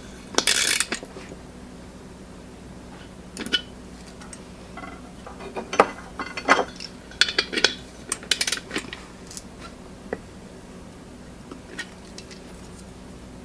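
A socket ratchet clicks briefly about half a second in, then metal hand tools and fittings clink and tap against the steel tank lid in a scatter of short clinks, busiest in the middle.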